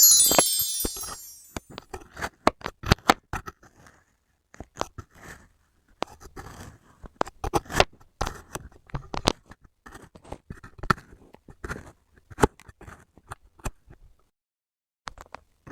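Kinetic sand being cut and scraped: a run of short, crisp crunches and scrapes at an irregular pace. It opens with a bright, high chime sound effect that fades away over about a second.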